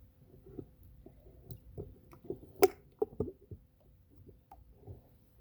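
Scattered light knocks and clicks of a plastic weir gate being handled in a pool skimmer. The sharpest knock comes about two and a half seconds in, followed by a few more just after.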